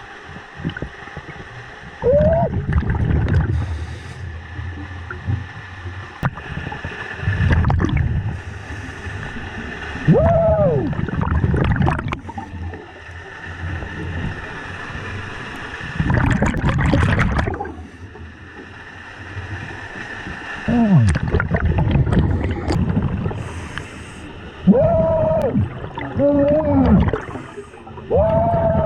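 Scuba diver breathing underwater through a regulator: about eight bursts of exhaled bubbles gurgling, one every few seconds, several carrying a brief wavering tone.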